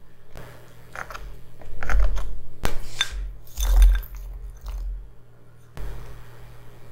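Frozen blueberries tipped out of a bowl onto a tart, clicking and clattering against the bowl and each other as they fall, with a few knocks and thuds from the bowl being handled. The densest rattle comes about three seconds in.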